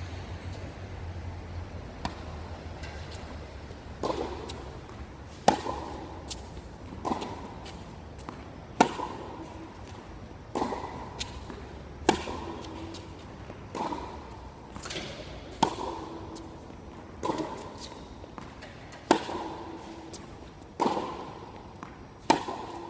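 Tennis rackets striking the ball in a baseline groundstroke rally. The hits start about four seconds in and come every one and a half to two seconds, every other hit sharper and louder, each followed by a short ringing echo under the court's roof.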